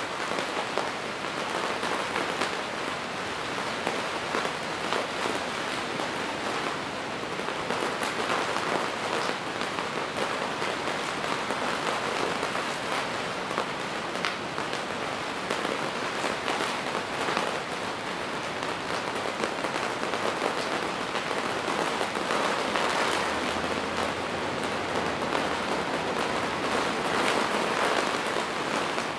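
Rain falling on the fabric roof of a yurt, heard from inside: a dense, steady spread of drops with many sharper individual taps, swelling slightly now and then.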